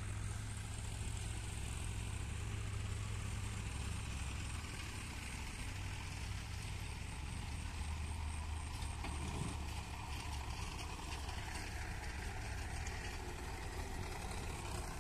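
Sonalika DI 35 tractor's diesel engine running steadily with a low, even hum as it pulls a loaded trolley.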